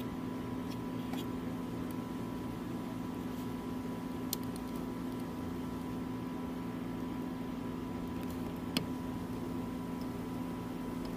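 Steady low electrical hum with a fainter high whine above it, broken by two faint ticks, a little before halfway and near the end.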